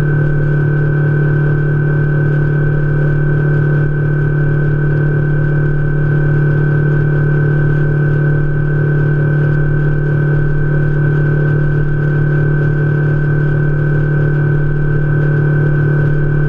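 Outboard motor of a Lund fishing boat running steadily at cruising speed, a constant loud drone with a steady high whine over it.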